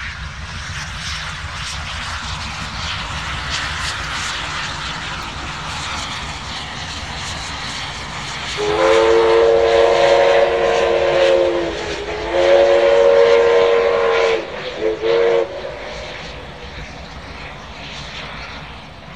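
NSWGR 59 class steam locomotive 5917 working its train with a steady chuffing rumble. About halfway through it sounds its chime steam whistle: two long blasts and then two short toots.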